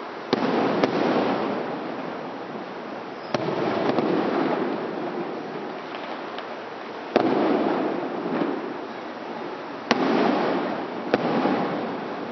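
Aerial fireworks shells bursting overhead: a sharp bang every few seconds, each followed by a rolling rumble that fades away.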